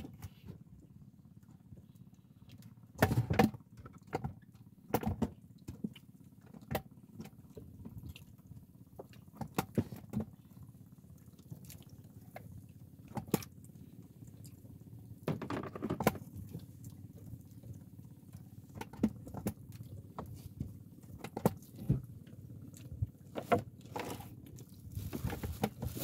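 Fishing tackle and line being handled on a boat: scattered small clicks and knocks at irregular intervals, loudest about three seconds in and in a longer rattle about halfway through, over a low steady hum.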